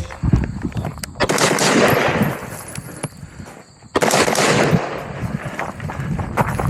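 Gunshots: several sharp reports, the two loudest about a second and four seconds in, each ringing out for about a second.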